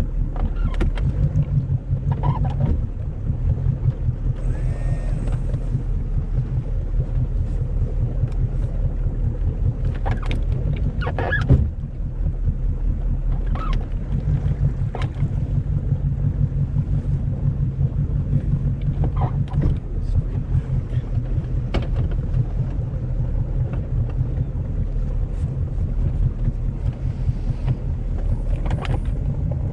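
A boat's engine running steadily at low speed during slow forward-and-reverse manoeuvring, with wind on the microphone and a few sharp knocks about ten and eleven seconds in.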